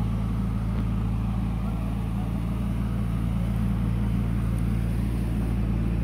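A steady low motor hum, unchanging, like an engine running at idle.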